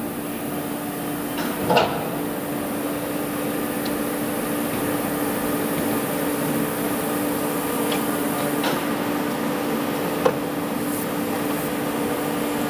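Steady hum of a Scharmann CNC horizontal floor borer running, with one steady tone held throughout, and two short knocks, one about two seconds in and a sharper one about ten seconds in.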